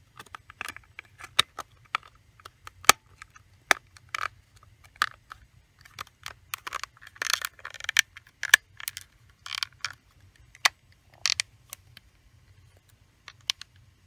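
The plastic case halves of an HP 20S calculator being pressed and snapped back together by hand: a run of irregular sharp plastic clicks with short scrapes and creaks in between, a few of them louder.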